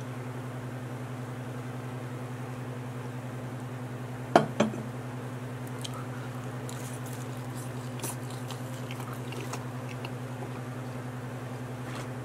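A close-miked bite into a pepperoni pizza slice: two sharp crunches about four seconds in, then faint wet chewing and small mouth clicks. A steady low electrical hum runs underneath.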